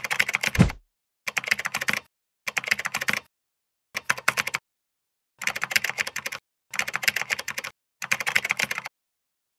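Computer keyboard typing sound effect for animated on-screen text: seven bursts of rapid key clicks, each under a second, with short silent gaps between. A short low falling swoop sounds just over half a second in.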